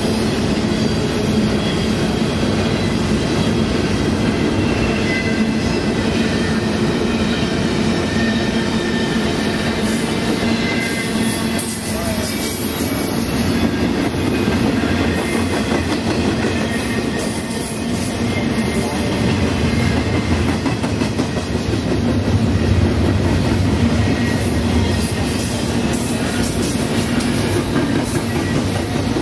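A train rolling past on the rails: a steady, loud rumble of wheels on track with a clickety-clack over the rail joints.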